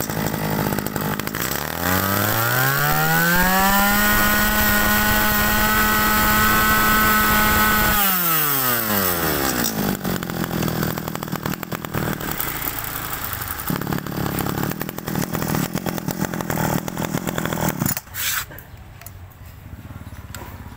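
Kawasaki two-stroke brush cutter engine, fitted with a new carburetor, revved up to full throttle and held there for about four seconds, then dropping back to a steady idle. It stops about three seconds before the end.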